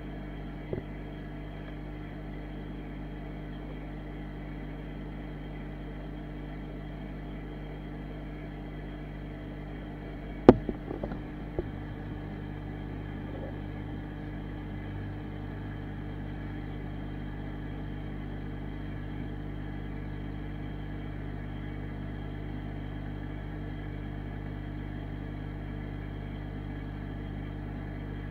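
Aquarium filter humming steadily. About ten seconds in there is one sharp knock followed by a few lighter clicks.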